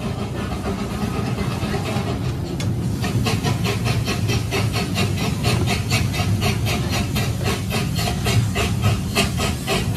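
Small park-train steam locomotive hissing steam, then chuffing in a quick, even beat of several strokes a second from about three seconds in, over a low rumble of the train running on its track.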